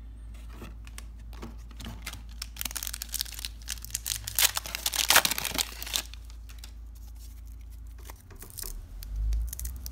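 The shiny wrapper of a 1993-94 Upper Deck basketball card pack being torn open and crinkled, a crackly tearing that is loudest about halfway through, as the stack of cards is pulled out.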